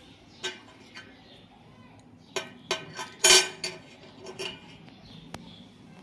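A metal coin being handled and tapped, giving a series of sharp metallic clinks with brief ringing. A few come singly early on, then a quick cluster in the middle, where the loudest rings longest.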